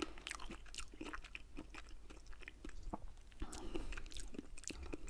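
Close-miked chewing of a mouthful of fresh strawberry: many small, irregular mouth clicks and smacks.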